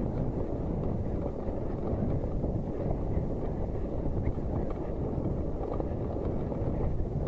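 Steady low rumble of wind buffeting the microphone and a mountain bike's tyres running over wet, muddy cobblestones, with faint spattering ticks.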